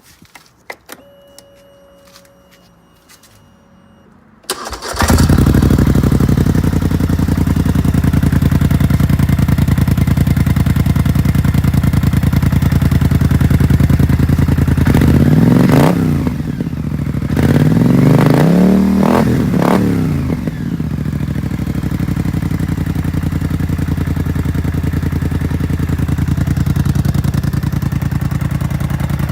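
Polaris Scrambler 850 ATV's twin-cylinder engine, fitted with a Big Gun EXO stainless steel exhaust, starting up after a few light clicks about four and a half seconds in and then idling steadily. Around the middle it is revved up and back down twice before settling to idle again.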